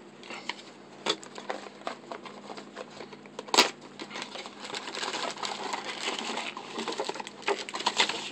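Hands rummaging through boxed packaging and accessories: scattered clicks and taps of small plastic parts, one sharper knock about three and a half seconds in, then steady crinkling of packaging over the last few seconds.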